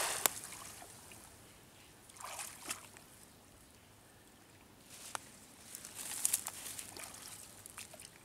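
Water splashing as a cast net lands on a pond, dying away within the first second, followed by short bursts of sloshing and trickling water with a few small clicks.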